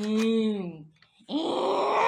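A person groaning in two long, drawn-out moans: the first held at one steady pitch, the second, after a short pause, rougher and higher.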